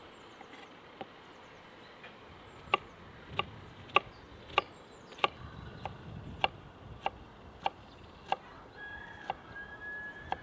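Even, steady chopping strokes of a blade on a cutting board, about one every 0.6 seconds, each a sharp knock with a slight ring, starting a few seconds in.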